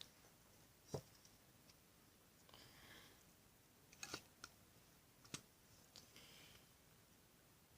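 Near silence with a few faint, sharp clicks and soft handling rustles, as of plastic bowls and a toothpaste tube being handled.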